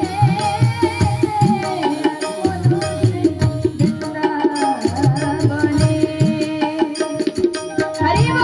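Live Hindu devotional bhajan music: tabla playing a steady rhythm under a held, wavering melody line from the harmonium and other accompanying instruments.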